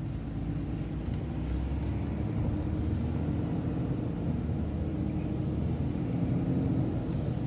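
A road vehicle running and driving along a road, probably a route bus: a steady low engine and road rumble with faint held engine tones.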